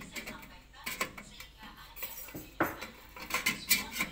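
Metal-on-metal clinks and scrapes as a perforated steamer tray is set into a metal pot and pressed into place. There is one clink about a second in and a quick run of clinks near the end.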